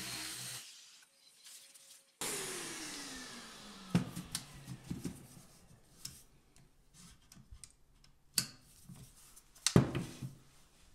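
A jigsaw motor running steadily cuts off under a second in. After a pause, a power tool's motor winds down with a falling whine, followed by scattered clicks and knocks of the tool and wood panel being handled, with a sharp knock near the end.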